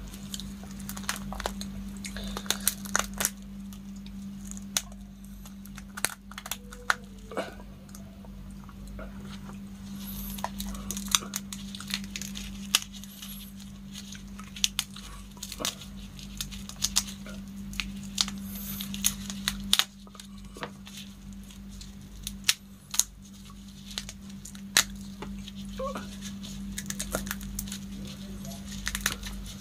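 Shells of cooked giant freshwater shrimp being cracked and torn apart by hand: irregular sharp cracks and tearing snaps, some in quick clusters, over a steady low hum.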